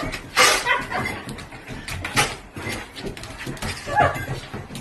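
A dog making short, sudden vocal sounds, three loud ones spaced about two seconds apart.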